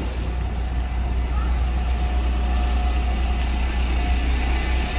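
Town-centre road traffic: a vehicle's engine running close by, a steady low rumble under a rushing noise that swells over the first second or so and then holds.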